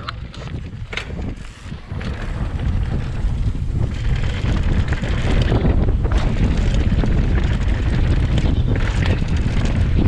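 Wind buffeting the camera microphone on a downhill mountain bike descending a dirt trail, growing louder about two seconds in and again near halfway as the bike gathers speed, with a few short knocks from the bike over the ground.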